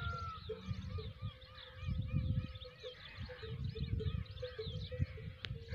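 Many small birds chirping together in a busy, continuous chorus of short rising-and-falling calls. Gusts of wind buffet the microphone with low rumbles.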